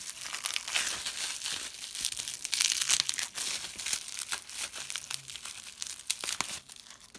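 Bubble wrap crinkling and tearing as it is pulled apart by hand to unwrap a small item, an irregular crackle with sharp snaps, stopping near the end.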